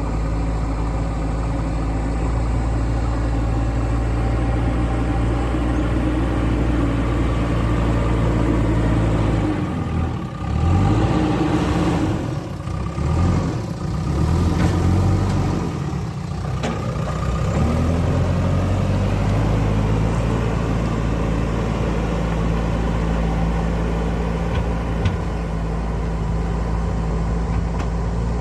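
JCB 3DX backhoe loader's diesel engine running at a steady idle. About ten seconds in, it revs up and down repeatedly for several seconds, then settles back to a steady idle.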